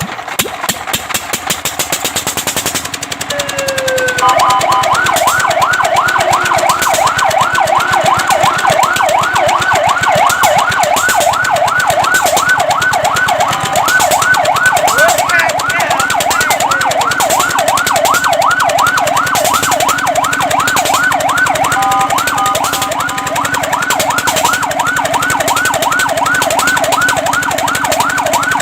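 Fire truck siren on a fast yelp, its pitch sweeping rapidly up and down several times a second, starting about four seconds in after a short rising glide. Before it starts, a fast, even pulsing sound.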